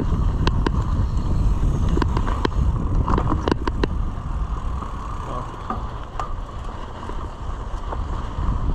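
Mountain bike ridden along a dirt trail: wind rumbling on the microphone, with sharp rattles and knocks from the bike scattered through it, thickest in the first half.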